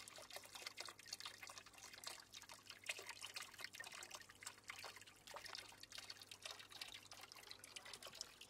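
Faint water trickling and dripping in a small garden pond, an irregular patter of small drips.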